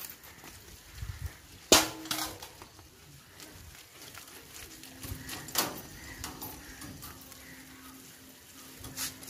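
A steel bowl set down on concrete with a sharp clank and a brief metallic ring about two seconds in, followed by a few softer clicks and knocks.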